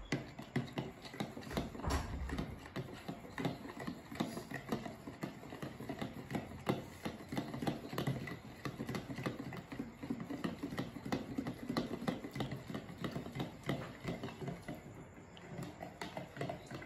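Fork beating eggs in a plastic jug: rapid, irregular clicking and tapping of the tines against the sides of the jug.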